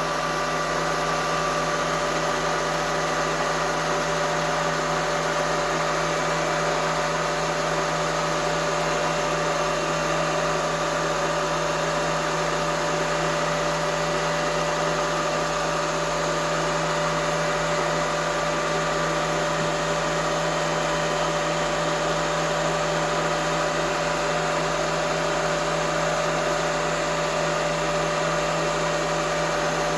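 Knee milling machine's spindle motor running steadily, a constant hum with a steady whine over it.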